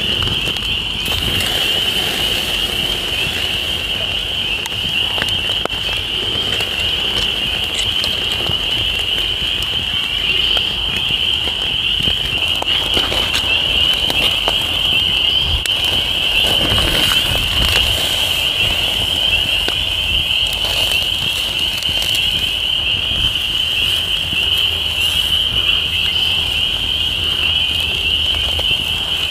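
Wood campfire crackling under steaks on a wire grill grate, with scattered small pops. Behind it runs a steady high-pitched frog chorus from the pond, a continuous trill that never lets up.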